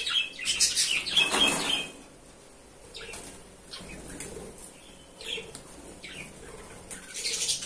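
Budgerigars flapping their wings in a wire cage: a loud flurry of fluttering in the first two seconds and another near the end. Short high budgie chirps come in between.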